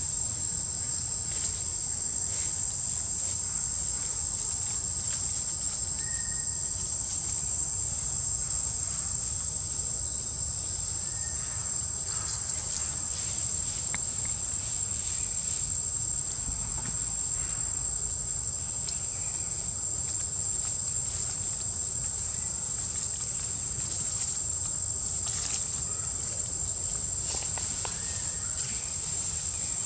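A steady insect chorus of crickets or cicadas, one unbroken high-pitched whine, over a low rumble.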